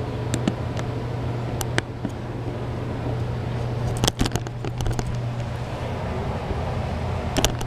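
Steady low hum, with a few sharp clicks and knocks from the phone being handled and swung around.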